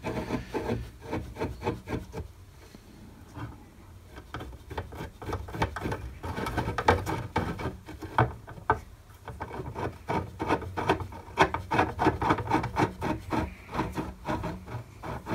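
Metal parts of a ball screw assembly being handled and turned by hand as the screw end is fitted into its bearing support block: a busy run of small metallic clicks and rubbing scrapes, growing denser about a third of the way in.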